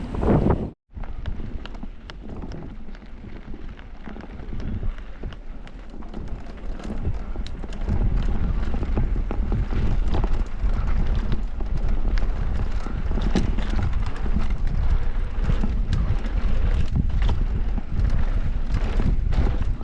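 Mountain bike rolling down a rough bike-park trail: a steady clatter of knocks and rattles from tyres and frame over rocks and roots, with wind on the microphone. It cuts out for a moment just after the start, and gets louder and busier from about eight seconds in.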